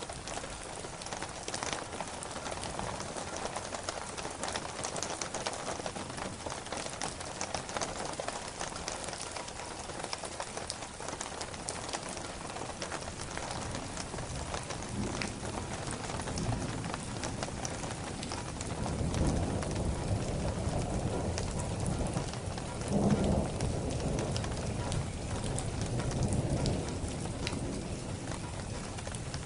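Steady heavy rain falling, a dense even patter, with low rolling thunder swelling in over the second half and loudest about two-thirds of the way through.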